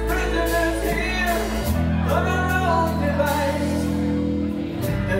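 Live rock band playing: a lead vocal sung over electric guitars, bass and drums. The bass holds long notes that change about two seconds in and again near the end.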